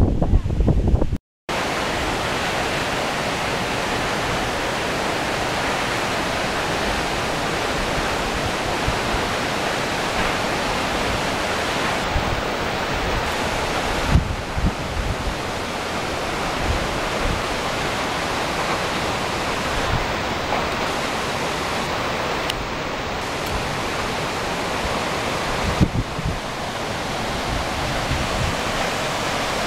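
Steady rushing of a waterfall, an even wash of falling water with no pauses. It cuts out briefly about a second in.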